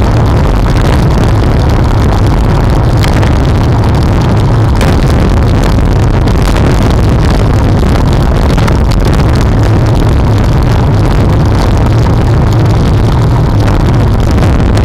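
Steady, loud wind rumble on the microphone of a camera mounted on a moving road bike, the constant noise of riding at speed in a group.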